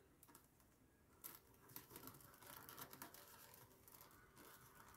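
Faint rustling and scratching of rolled newspaper tubes being threaded one by one through the woven rim of a paper-tube basket.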